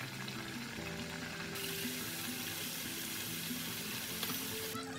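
Murukku dough deep-frying in hot oil, a steady sizzle and bubbling under background music. The sizzle turns much louder and brighter about one and a half seconds in and drops back just before the end.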